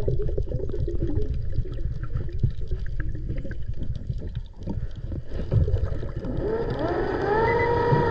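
Underwater recording: a muffled low rumble of water with a crackle of many small clicks as a gloved hand fans the sand. About six seconds in, a boat motor's whine comes in through the water, rising in pitch and then holding steady.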